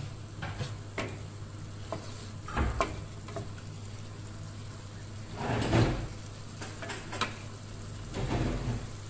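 Wooden spatula scraping and knocking against a wok as chicken and green beans are stir-fried, in scattered irregular strokes, the loudest a little over halfway through.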